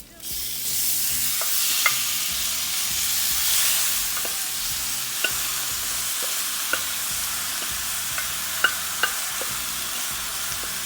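Marinated chicken pieces hitting hot oil with fried onions and spices: a loud sizzle that starts suddenly, with a spoon clicking against the pan every second or so as it is stirred.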